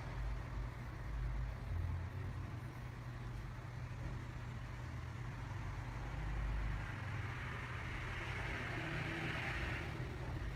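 Steady low rumble and hiss of background noise, with the hiss growing stronger for a couple of seconds near the end.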